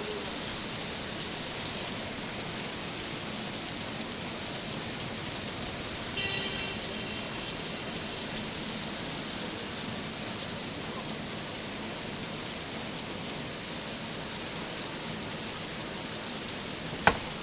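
Rain falling steadily. A brief high tone sounds about six seconds in, and a single sharp knock comes near the end.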